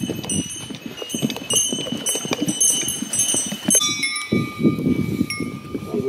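Hikers' footsteps on a dirt forest trail, then on a wooden boardwalk from about four seconds in, with small bells jingling and ringing over the steps.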